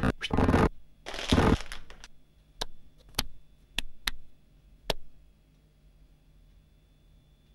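Cartoon sound effects: two short loud rushing noises, then five sharp clicks spread over about two and a half seconds, after which it falls to near quiet.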